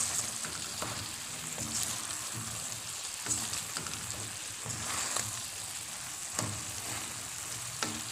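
Mixed vegetables sizzling in a wok as they are stirred with a spatula, with a steady hiss and a few sharp clicks and scrapes of the spatula against the pan.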